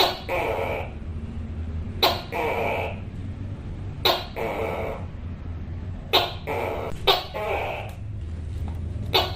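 Tokay gecko calling "to-kay" again and again, about every two seconds. Each call is a sharp first syllable followed by a longer, drawn-out second one. A steady low hum runs underneath.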